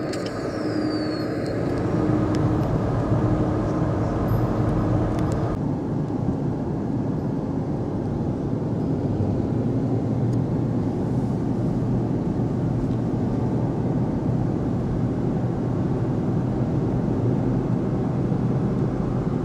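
Road noise of a moving car heard from inside the cabin: a steady rush with a low hum. The higher hiss drops away about five and a half seconds in.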